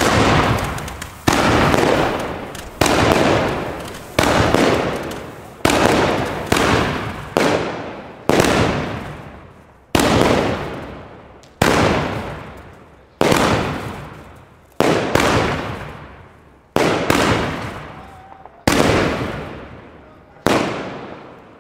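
A 13-shot, 30 mm consumer firework battery (Pyroland 'Bär Bock') firing its shots in a steady run, roughly one every one to two seconds, each sharp bang tailing off over a second or more.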